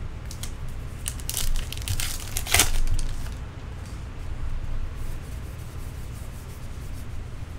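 Trading card packs torn open by hand and the cards flicked through. The wrappers crinkle and rip in a burst during the first three seconds, followed by softer card rustles and flicks over a steady low hum.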